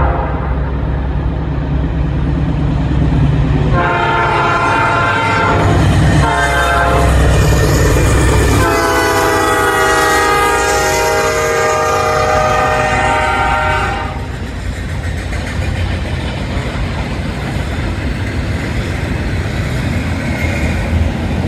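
Norfolk Southern GE diesel locomotives sounding their horn for a grade crossing: a blast fading out at the start, a long blast about four seconds in, a short one, then a long blast of about five seconds as the locomotives pass, over the deep rumble of their engines. After that the double-stack container cars roll by with a steady rumble of wheels on rail.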